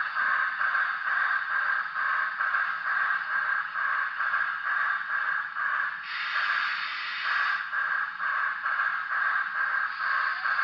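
Broadway Limited Paragon 3 sound decoder in an HO-scale PRR T1 4-4-4-4 model, playing steam exhaust chuffs through its small onboard speaker at a low speed step, about four chuffs a second. About six seconds in, a burst of hiss lasting a second and a half runs over the chuffing.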